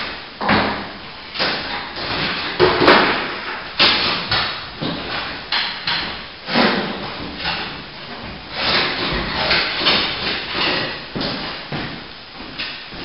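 Plastering tools knocking and scraping at work, an irregular run of sharp knocks and short scrapes about one or two a second.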